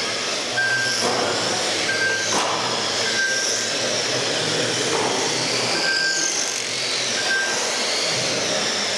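Several 1/10-scale electric RC touring cars racing on a carpet track, their motors and gears whining and rising and falling in pitch as they speed up and brake. A few short beeps sound at intervals.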